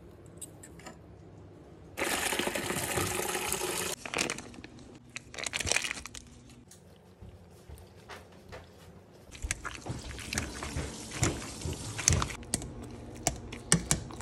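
Water pouring for about two seconds as the boiled potatoes are drained. Then scraping and clinking in a metal pot, and near the end a potato masher working through the soft potatoes with sharp knocks against the pot.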